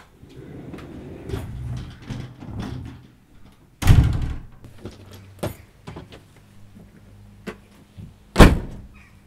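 A house's front door slammed shut with a heavy thud about four seconds in, after soft movement noises, then a smaller click about a second and a half later. Near the end comes a second, louder slam as a hatchback's tailgate is shut.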